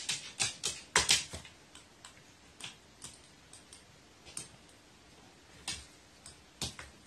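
Sharp clicks and taps from a carrion crow's claws and beak on a wooden floor and a plastic basin of water balloons. A quick run of clicks comes in the first second and a half, then single clicks about a second apart.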